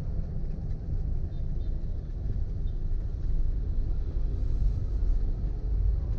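Road and wind noise from a moving vehicle: a steady low rumble.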